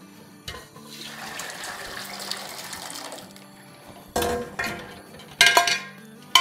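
Cooked lentils in their cooking water poured from a stainless-steel pressure-cooker pot into a large aluminium pot: a rushing, splashing pour for about three seconds. Then a few sharp metal clanks and scrapes as the pots knock together.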